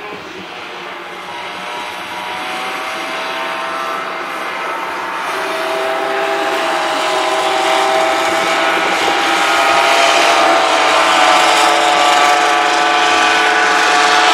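Racing kart's small 50cc two-stroke engine at high revs, a steady high-pitched whine that grows steadily louder as the kart approaches.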